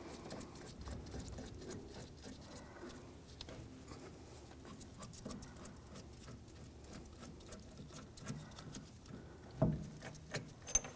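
Light scratchy clicking of a rusty rear axle bolt being unscrewed by hand from the wheel hub, metal threads ticking as it turns, with a couple of louder knocks near the end.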